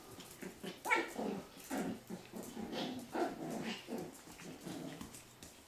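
Japanese Spitz mother and puppy play-fighting, with a string of short dog vocal sounds, growls and barks, the loudest about a second in.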